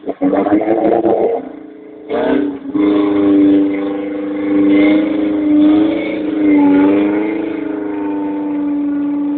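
Engine of a small off-road 4x4 held at high revs under load as it climbs a steep muddy slope. It eases off briefly after a second or so, then goes back up to high revs at about two seconds in, with slight rises and falls in pitch.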